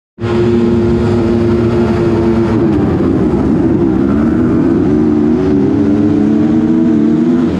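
Motocross bike engines running at held revs, their pitch steady at first and then wavering down and up from about two and a half seconds in.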